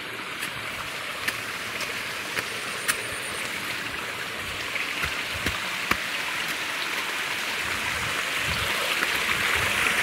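Water of a small rocky waterfall stream rushing steadily, growing louder toward the end, with a few sharp clicks.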